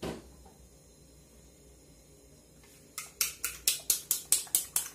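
A fork beating eggs in a bowl, a quick regular clicking of about five strokes a second that starts about three seconds in. A single knock comes at the very start.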